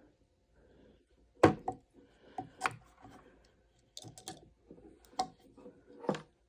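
A handful of sharp clicks and knocks of hard objects being handled, irregularly spaced, the loudest about a second and a half in.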